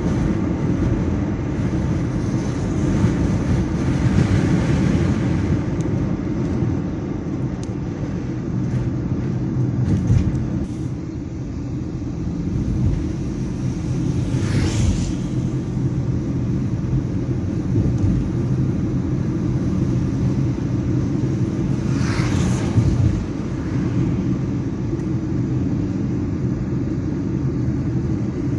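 Steady engine and tyre drone heard inside a car cruising on a highway. Two brief whooshes come from vehicles passing, about halfway through and again some seconds later.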